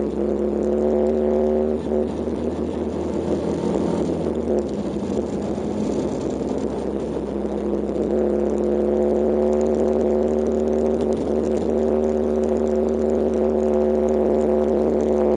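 Kawasaki KLX125's air-cooled 125 cc single-cylinder four-stroke engine running steadily under way on a gravel road, with wind and tyre noise. The engine note wavers and loosens between about two and eight seconds in, then settles steady again.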